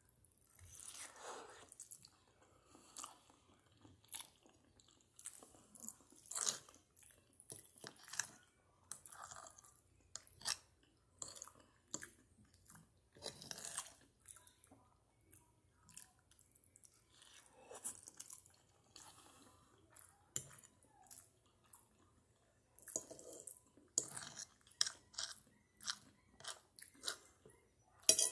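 Close-up chewing of a mouthful of spaghetti with meat sauce: irregular wet mouth smacks and clicks, coming thicker and sharper near the end.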